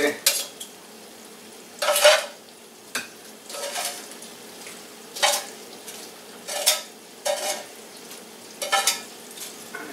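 Metal tongs clattering and scraping against a frying pan as crispy bacon strips are lifted out, a short clatter every second or two, over a steady faint sizzle of hot bacon fat.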